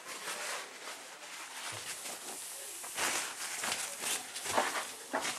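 Rubbing strokes wiping down the surface of a steel tool chest, irregular swishes that grow stronger about three seconds in.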